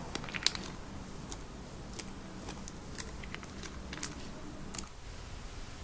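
Slime being squeezed and poked by hand, giving scattered sticky clicks and small pops, roughly one or two a second.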